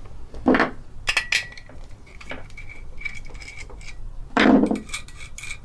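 Small metal parts of a sewing machine motor (bolts, washers, housing) clinking and ticking as they are handled: a run of light metallic ticks, with two duller knocks about half a second in and about four and a half seconds in.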